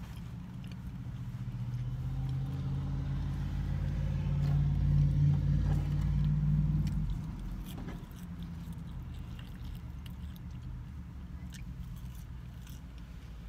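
Low engine rumble of a motor vehicle close by, swelling over several seconds and dropping away about seven seconds in, with faint clicking mouth sounds of eating.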